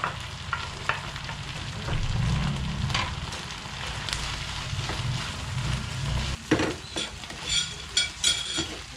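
Chopped pork and red onions sizzling in a frying pan while being stirred, the spatula scraping and clicking against the pan. About six and a half seconds in come a few louder knocks and scrapes.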